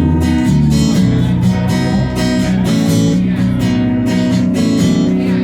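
Live band music: guitar strumming chords over a bass line, in a short instrumental gap between sung lines.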